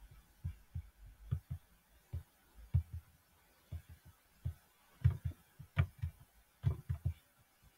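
Soft, irregular low thumps and clicks, a few a second, from a computer mouse being clicked and handled on a desk.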